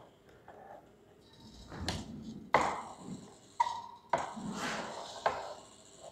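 About five sharp metallic taps, irregularly spaced, as a potentiometer jockey is pressed down onto the bare resistance wire over its wooden board. The wire is being tested point by point in search of the balancing point where the galvanometer shows zero deflection.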